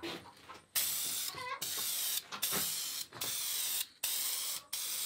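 Aerosol spray can spraying in a series of short hissing blasts, about six in a row, with brief pauses between them.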